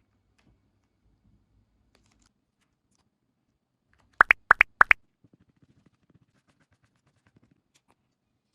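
Nano-tape water bubble being squeezed: six short, sharp squeaky squelches in three quick pairs about halfway through, then faint crinkling of the tape.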